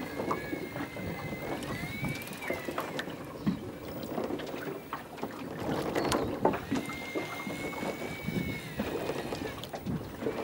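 Fishing reel winding in line against a hooked fish, a thin high whine that starts and stops several times and glides up briefly about two seconds in. Under it, wind on the microphone, water against a small boat's hull and scattered knocks of gear.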